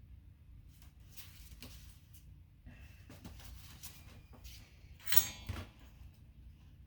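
Small clicks and rustles of wires and hand tools being handled at a workbench, over a low steady hum, with one louder clatter about five seconds in.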